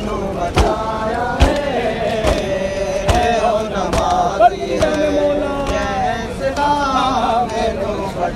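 A male voice chanting a noha, a Muharram mourning lament, in long bending held notes, over a crowd of mourners beating their chests (matam) in a steady rhythm of about one stroke every 0.8 seconds.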